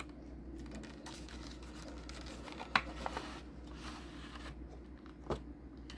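Cardboard box and clear plastic tray of small gel polish bottles being handled as the set is pulled out of its box, with a sharp click about three seconds in and another near the end.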